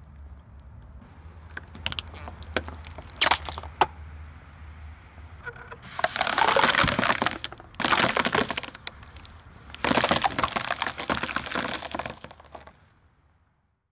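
Scattered sharp cracks and snaps, then dry spaghetti sticks snapping and a floral foam block crunching under a car tyre, in three dense runs of crackling from about six seconds in. A low steady hum runs underneath, and everything stops shortly before the end.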